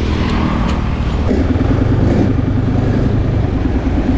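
Honda Click scooter's engine running steadily while riding, its hum growing a little stronger about a second in.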